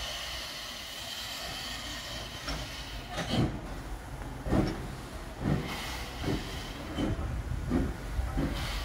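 Steam locomotive hissing steam, then pulling away: exhaust chuffs start about three seconds in and come quicker as it gathers speed.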